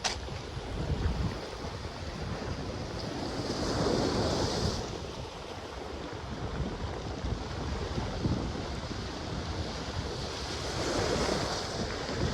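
Ocean waves washing onto a black sand beach, with two waves swelling louder and falling back, one about four seconds in and one near the end. Sea wind buffets the microphone with a low rumble.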